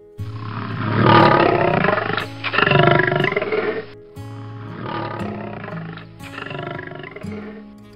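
Big cat roaring four times in long rough calls, the first two loudest, over light background music.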